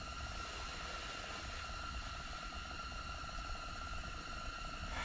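Propane tank-top heater burning with a steady hiss inside a small insulated ice shelter, a faint steady high whine running through it.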